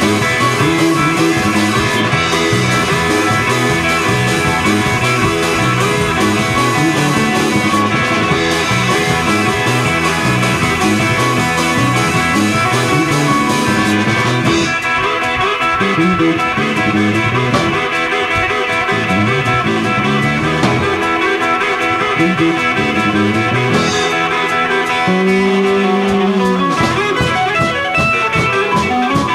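Instrumental break of a blues-rock song, with guitar carrying the melody and no singing. Near the end one note is held for about a second and a half.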